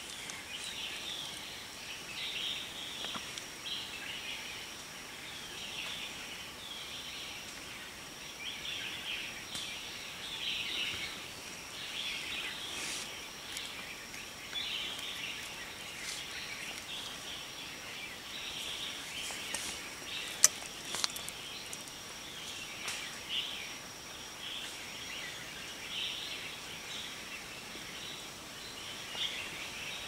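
Forest birds chirping and calling almost without a break, over a steady high-pitched whine. One sharp click stands out about twenty seconds in.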